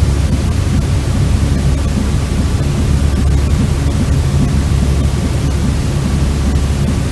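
Steady white noise for infant sleep: an even, unbroken hiss with most of its weight in a deep low rumble.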